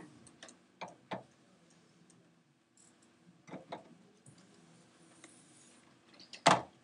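Scattered light clicks and taps of a pen on an interactive whiteboard as it writes, over a faint low hum. One louder knock comes near the end.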